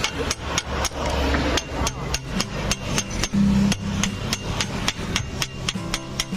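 Hammer striking metal in a quick, even series of blows, about four a second.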